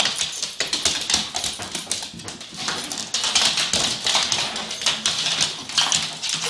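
Dogs' claws clicking and scrabbling rapidly and irregularly on a hardwood floor as they chase and pounce at a laser pointer dot.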